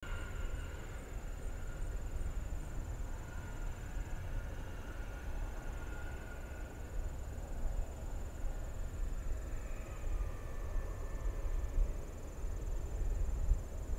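Distant Boeing 737 airliner's jet engines at idle as it lines up on the runway: a steady low rumble with a faint whine that slowly wanders in pitch. A thin, steady high insect trill runs alongside.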